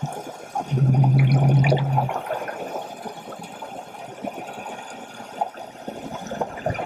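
Underwater sound picked up by a scuba diver's camera: a steady watery rush of regulator bubbles with scattered crackling clicks. About a second in, a loud low hum holds steady for just over a second, then stops.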